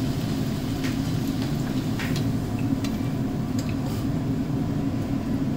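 Puri deep-frying in hot oil in an iron kadhai: steady sizzling and bubbling over a low rumble, with a few light clicks of the metal slotted spoon against the pan.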